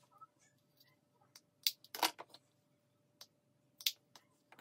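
A handful of sharp clicks and taps from makeup compacts and packaging being handled and set down, the loudest about two seconds in.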